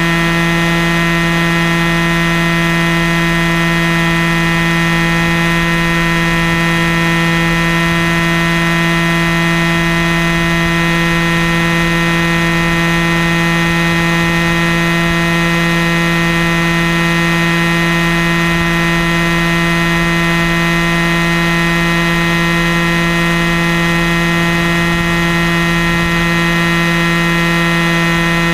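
Airstar Mongoose RC helicopter in flight, heard from a camera mounted on its nose: a loud, steady drone of the motor and rotors with a high whine, holding one even pitch throughout.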